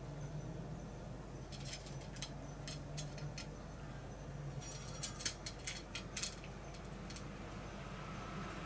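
Cat eating dry kibble from a steel bowl: sharp crunches and clinks, a sparse run about two seconds in and a denser, louder run from about five to seven seconds in.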